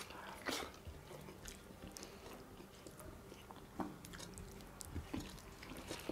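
Faint chewing and mouth sounds of people eating mutton curry and rice, with scattered soft clicks and a few slightly louder ticks.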